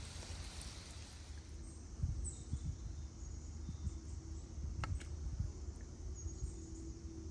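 Hot oil sizzling around falafel balls frying in a pan, fading after about a second and a half. Then come faint outdoor ambience with birds and insects chirping, low rumbling and one sharp click near the middle.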